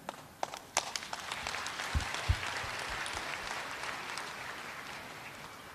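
Audience in a large hall applauding: a few scattered claps at first, swelling within a second or so into steady applause that slowly dies away. There are two dull thumps about two seconds in.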